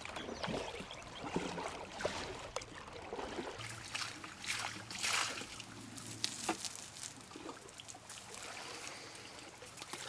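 River water splashing and trickling, then sloshing and several splashes as a person wades in the river and dips a bucket into the water.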